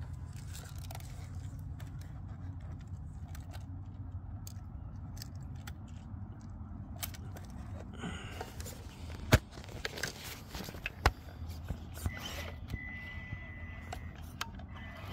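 Traxxas TRX-4M 1/18 mini crawler, on freshly installed Injora UD gears, crawling over rocks: tyres and chassis scraping and clicking on stone, with two sharp knocks about nine and eleven seconds in. Near the end a steady high whine from the crawler's motor and gears sets in.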